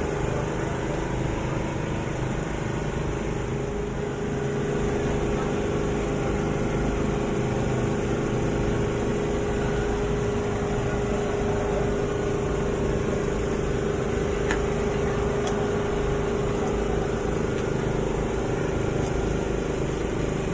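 A steady machine hum with a constant pitch, among outdoor background noise, with a couple of faint clicks about two-thirds of the way through.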